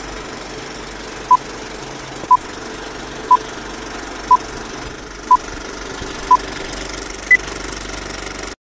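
Old film countdown-leader effect: a steady, even film-projector rattle with a short beep once a second, six times, then a single higher beep. The sound cuts off suddenly just before the end.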